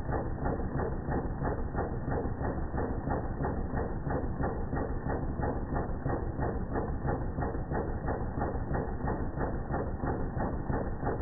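Philips DP70 film projector's intermittent film-advance mechanism running, a steady clatter of evenly spaced clicks at about three a second. It is slowed down with the slow-motion footage, so the clicks sound low and drawn out.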